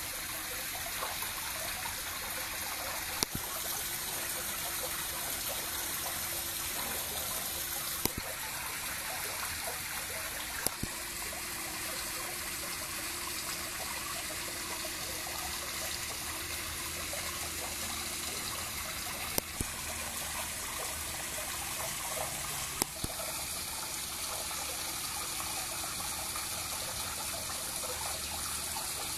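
Steady trickling and running water in a fish pond, broken by a handful of sharp pops or splashes as red-tailed catfish × tiger shovelnose catfish hybrids take floating pellets at the surface.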